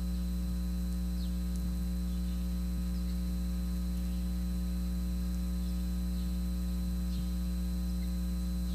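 Steady electrical mains hum with a buzz of many overtones and a thin high whine, picked up through a wired handheld microphone: the fault the speaker is chasing and puts down to the microphone cable being too crinkled up.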